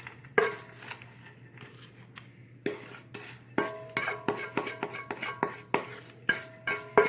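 A spoon knocking and scraping against a bowl while blueberry pie filling is moved. A few scattered clinks give way, about three and a half seconds in, to a steady run of about three or four ringing knocks a second.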